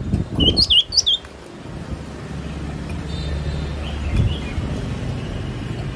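Yellow-cheeked tit calling: a quick run of about four high, swooping notes in the first second, then a faint note or two, over a steady low rumble.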